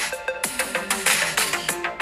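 Electronic music playing through the iPhone 16 Pro Max's built-in speakers, with a steady beat and little deep bass.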